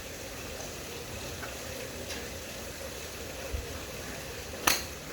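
Steady background hiss, with one sharp crack about four and a half seconds in: a golf club striking a ball on a single shot. A few faint ticks come before it.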